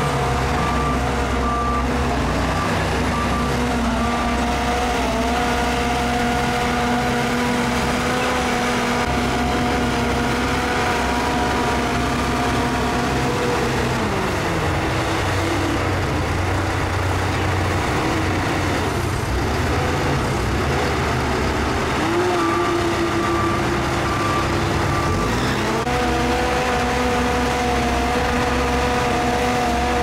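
Crawler bulldozer diesel engines running hard under load while a dozer works to push a mud-bogged bulldozer free. The engine note drops about halfway through and climbs back near the end, and a reversing alarm beeps at the start and again just past the middle.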